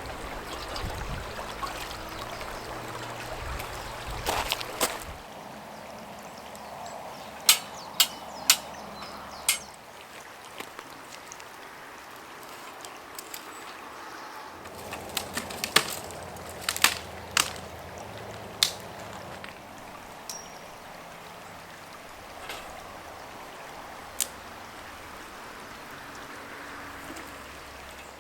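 A steady rushing, water-like noise with scattered sharp clicks and knocks, bunched in two clusters about a third and about two-thirds of the way through.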